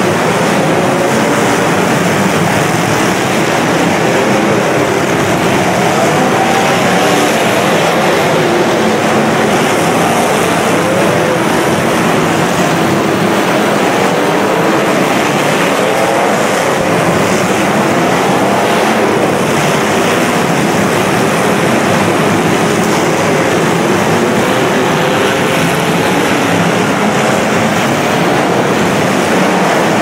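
Several demolition derby cars' engines running and revving hard, their pitch rising and falling over a dense, steady wash of noise that echoes in an indoor arena.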